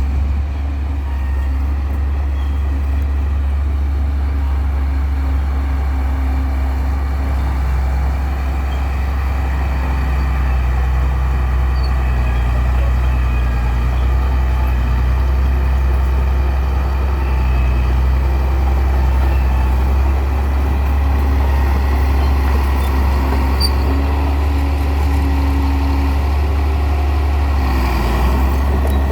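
Heavy engine running steadily, a low drone with slight shifts in pitch and no breaks.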